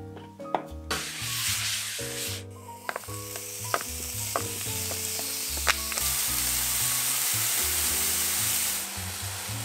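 Diced bacon sizzling in hot oil in a copper frying pan, stirred with a wooden spatula, with a few sharp taps. The sizzle starts about a second in and turns steady once the bacon is in. Soft background music plays underneath.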